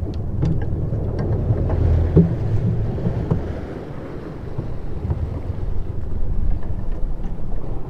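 Boat engine running with a steady low rumble, wind buffeting the microphone and water rushing along the hull. A few small clicks come in the first few seconds.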